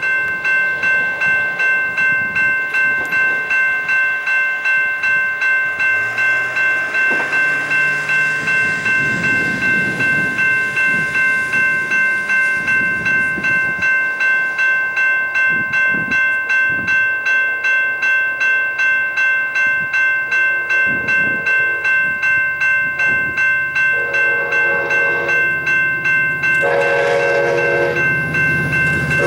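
Railroad grade-crossing bell ringing steadily, about two strokes a second. Near the end a locomotive horn joins it in separate blasts as a train approaches.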